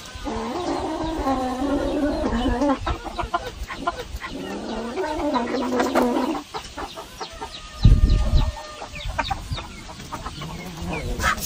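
Chickens clucking, with two long wavering calls in the first half and a brief low thump about eight seconds in.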